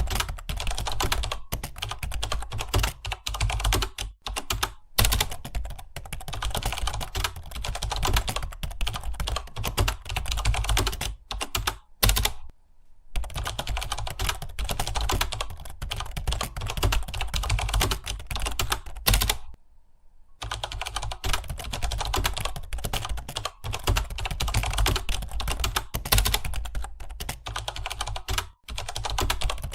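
Rapid, continuous typing on a computer keyboard, keys clicking many times a second, with two brief pauses, a little before halfway and about two-thirds of the way through.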